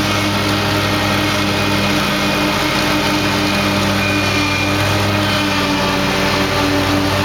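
Lawn mower engine running steadily at an even speed, a constant hum.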